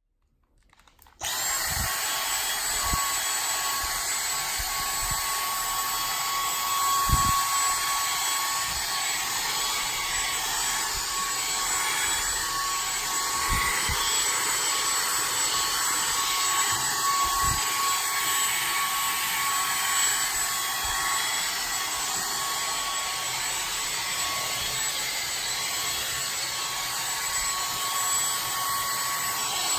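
Vacuum cleaner motor switching on about a second in and then running steadily with a high whine, as it is passed over a cat's fur, with occasional soft low thumps.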